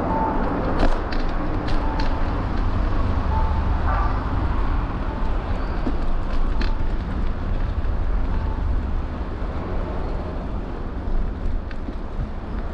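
Street traffic noise with wind rumbling on the microphone of a moving bicycle, and a few sharp clicks in the first seven seconds.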